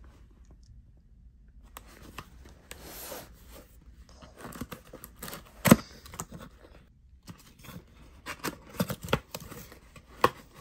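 A small cardboard box being handled and opened: rustling and scraping of the cardboard, broken by sharp clicks and taps as the tuck-in flap is worked. The loudest is a single sharp click about six seconds in.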